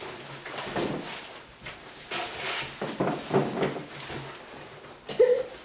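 A cardboard box being handled and opened, its flaps scraping and rustling in irregular bursts, with a short pitched sound about five seconds in, the loudest moment.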